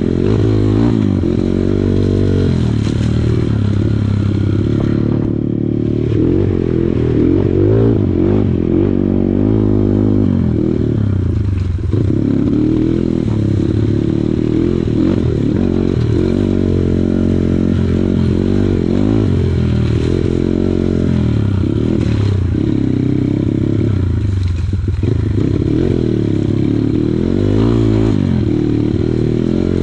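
Kawasaki KLX140 dirt bike's single-cylinder four-stroke engine running under load, its pitch rising and falling again and again as the throttle is opened and closed.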